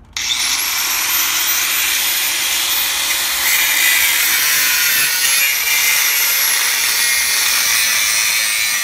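Hercules 4-1/2 in. 7 amp angle grinder with a thin metal cut-off disc cutting through a quarter-inch-thick steel fence post. The motor's whine climbs sharply as it spins up just after the start, then runs steadily high over a harsh grinding hiss, sinking slowly in pitch as the disc bites into the steel.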